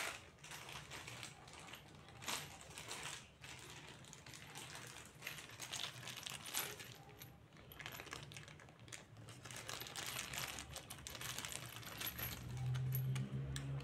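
Clear plastic zip bag of furniture assembly hardware handled in the hands: the bag crinkles and the metal screws, bolts and Allen key inside clink together in irregular bursts. A low steady hum comes in near the end.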